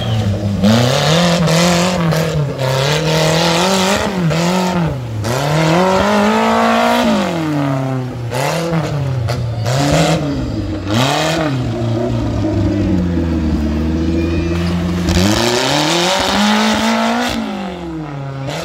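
Small homemade tractor's engine revving up and down again and again as it is driven through mud, its pitch rising and falling every second or two.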